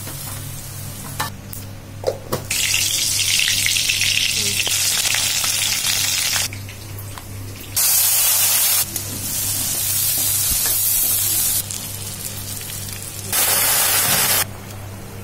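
Hot oil sizzling in a kadai as lentil dumplings, then green chillies and masala, fry and are stirred with a wooden spatula. The loud sizzle comes in stretches that cut in and out suddenly, with a few sharp clicks in the first seconds and a steady low hum underneath.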